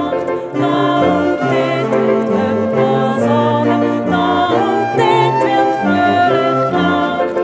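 Music: voices singing a song with instrumental accompaniment, held notes moving from pitch to pitch.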